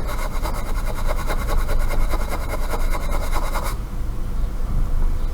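A small brush rapidly scrubbing a laptop logic board with cleaner, in quick even strokes that stop about two-thirds of the way through, over a steady low hum.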